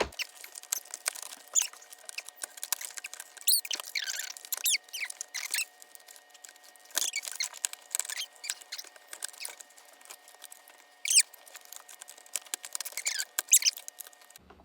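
Scattered high, short squeaks that slide up and down in pitch, mixed with light clicks, from a vacuum cleaner's rubber drive belt and plastic brush roll being handled and fitted.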